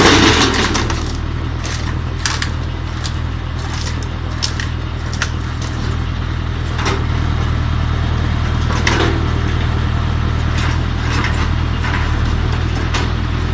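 Engine of a log splitter running steadily, with scattered sharp knocks and cracks of wood and metal as a heavy log is worked.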